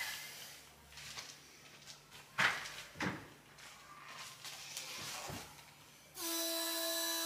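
A few faint knocks and clacks over a low steady hum, the clearest two about half a second apart near the middle. Music with sustained pitched notes starts near the end.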